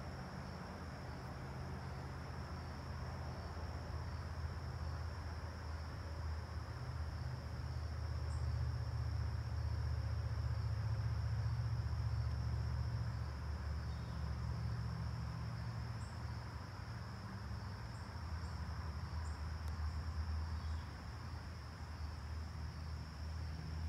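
Insects chirring in one steady, high, even drone, over a low uneven rumble that swells in the middle.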